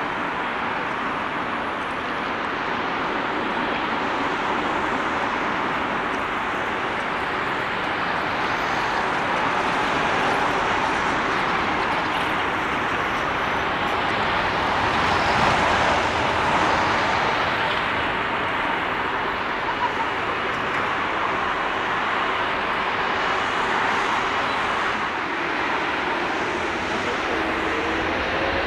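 Jet airliner's engines at takeoff thrust: a steady rushing noise that swells to its loudest about halfway through as the plane lifts off and climbs, then eases a little.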